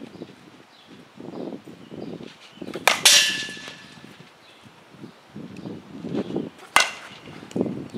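Softball bat striking a softball twice, about four seconds apart, each a sharp crack; the first hit, about three seconds in, leaves a short ringing ping.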